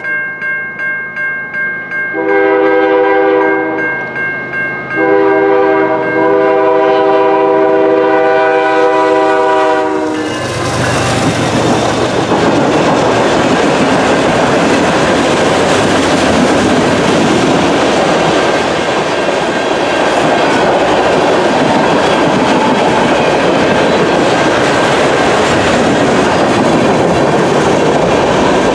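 Level-crossing bell ringing, then the horn of a CN GE ES44DC diesel locomotive sounding two long blasts as it approaches. From about ten seconds in, the steady noise of the freight train passing, its cars rolling over the crossing with a clickety-clack.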